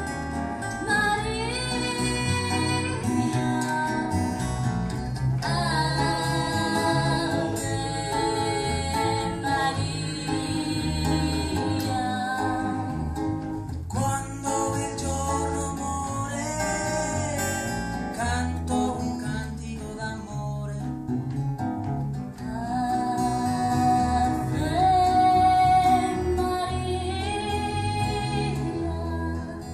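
Live acoustic guitar ensemble playing an instrumental passage: plucked and strummed guitars under a melody line.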